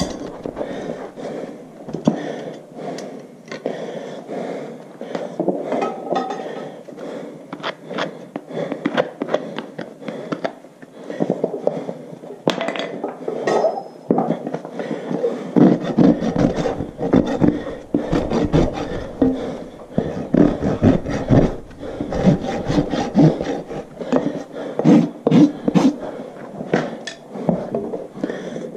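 Farrier's rasp filing a horse's hoof wall in repeated scraping strokes, bevelling the outside edge of the freshly trimmed hoof. The strokes grow heavier and fuller about halfway through.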